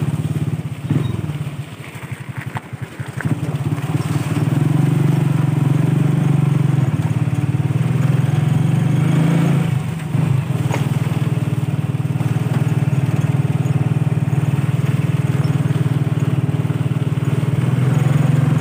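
Small motorcycle engine running as it rides along. It eases off near the start, then runs steady, with a brief dip about halfway through.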